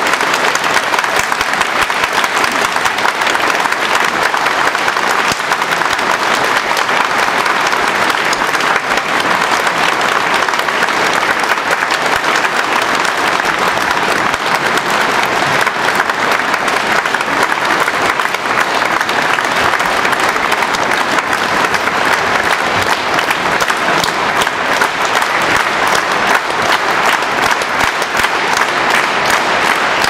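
Large concert-hall audience applauding, a steady dense wash of many hands clapping with no letup.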